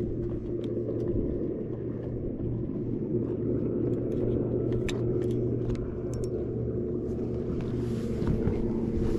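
Bass boat's electric trolling motor running with a steady hum and a low rumble. A few faint ticks sound over it.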